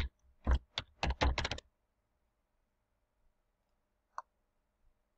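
Computer keyboard typing: a quick run of about seven keystrokes in the first second and a half, then a single fainter click about four seconds in.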